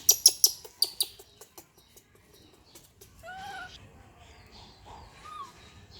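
A quick run of loud, sharp clicks in the first second, thinning out over the next two seconds, then a baby monkey giving two short calls that rise and fall in pitch.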